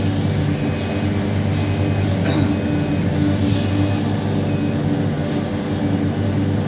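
Heavy diesel engine of a Hitachi 870 excavator running steadily under work load, with a warning beeper sounding short high beeps about once a second until a little past the middle.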